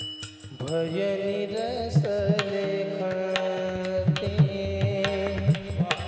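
Marathi kirtan music: a man's voice holds a long sung note with small wavering ornaments, starting about half a second in. It is accompanied by a hand drum and the clinks of small taal hand cymbals.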